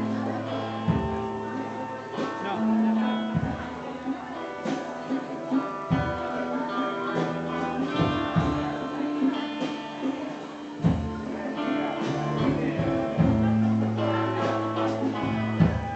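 Music with guitar, held low notes and a regular beat.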